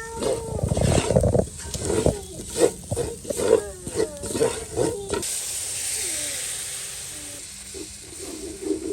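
Voices talking, then about five seconds in a loud hiss of food frying in hot oil sets in and fades away over a couple of seconds.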